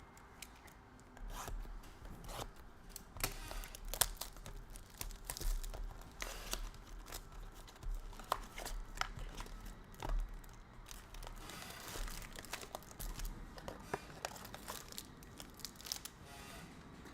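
Plastic packaging being torn and crinkled by hand, a continuous crackle with many sharp clicks and snaps.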